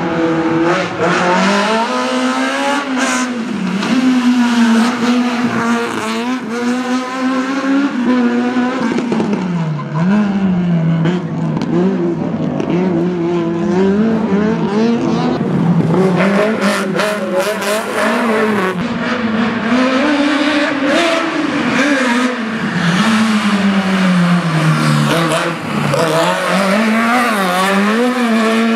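Fiat 127 slalom race car's engine revving hard, its pitch climbing and dropping again and again as it accelerates, shifts and brakes through a slalom course.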